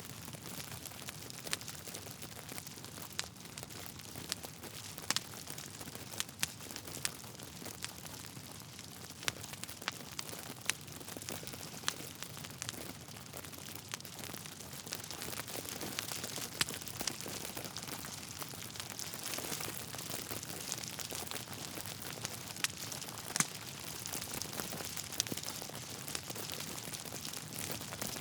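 Wood fire in a fireplace burning steadily: a soft hiss with irregular sharp crackles and pops from the burning logs.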